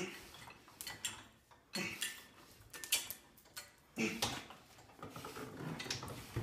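Stacked iron weight plates and chain clinking and clanking against each other as a bar hung with them is pressed overhead two-handed, with a sharp metallic clink about once a second as each rep moves the load.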